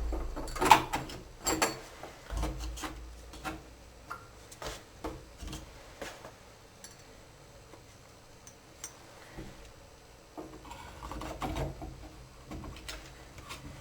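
Scattered clicks, taps and knocks of hands and tools handling shower valve parts while the valve is fitted back into the shower, the loudest knocks about a second in, with some low rumbling handling noise.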